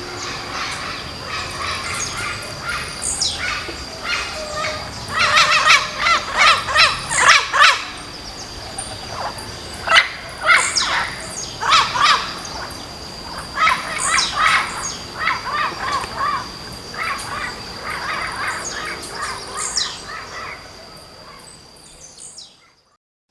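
Blue-black grassquit (tiziu) repeating its short, sharp song note that falls in pitch, every few seconds, among other birds chirping. A thin steady high tone runs underneath, and the sound fades out near the end.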